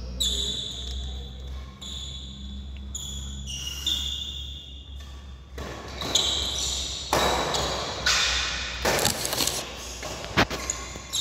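A badminton doubles rally in a large hall: court shoes squeaking on the floor in short high-pitched squeaks, scuffing footwork, and a few sharp racket hits on the shuttlecock near the end, over a steady low hum.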